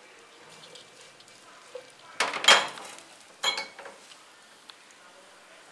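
Two brief clattering knocks of kitchenware, a glass bowl and spatula handled over a nonstick pot, about two and three and a half seconds in. Under them, a faint steady hiss of shredded chicken frying in oil.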